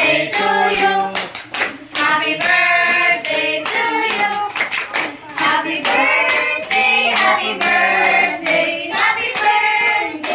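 A group of people singing together with hand clapping throughout.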